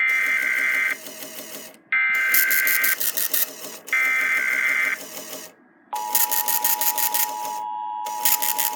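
TFT EAS 911 encoder playing an Emergency Alert System SAME header through its built-in speaker: three one-second bursts of warbling digital data tones, about a second apart. About six seconds in, the steady two-tone EAS attention signal starts. A fast rattling chatter runs along underneath.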